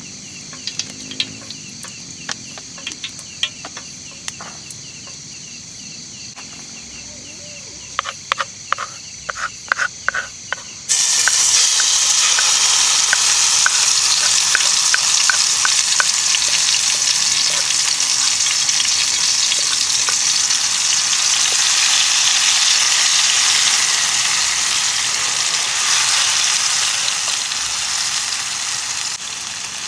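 A few clicks and knocks of cookware, then about eleven seconds in a loud sizzle starts suddenly as food goes into hot oil in a pan. The frying then goes on steadily, with small popping crackles.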